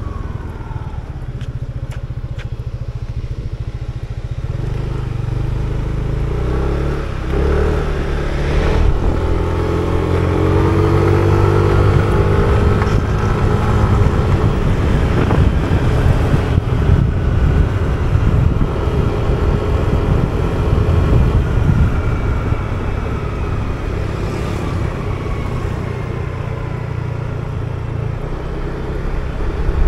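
Yamaha motor scooter engine running under way, mixed with heavy wind rumble on the microphone. The engine whine rises as the scooter speeds up about a third of the way in, holds, then slowly drops later on.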